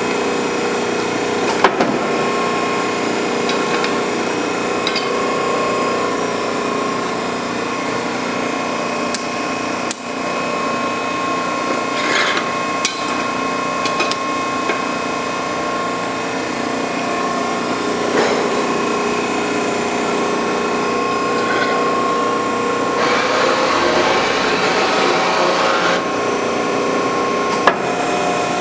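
Allsteel CNC hydraulic press brake running, its hydraulic pump motor humming steadily, with scattered clicks. Toward the end, a hiss lasts about three seconds.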